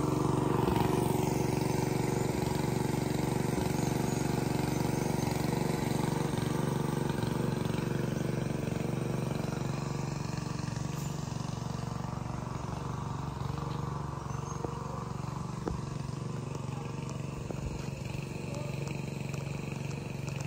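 An engine running steadily at one even speed, slowly growing fainter.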